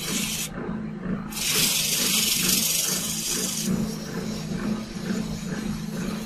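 Electric motor humming steadily as it spins a brass-rimmed disc, with sandpaper hissing against the turning metal. The hiss stops briefly about half a second in, comes back strongest from about one and a half to three and a half seconds, then eases off.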